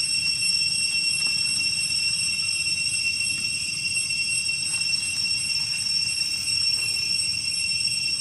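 Night insect chorus: a steady, unbroken high-pitched chirring made of several shrill tones layered together, over a low background rumble.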